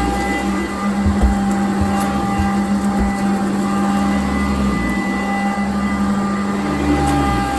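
Sanitaire upright vacuum cleaner running on carpet: a steady motor tone with a brush roll, over a low rumble that swells and drops every second or two as it is pushed back and forth.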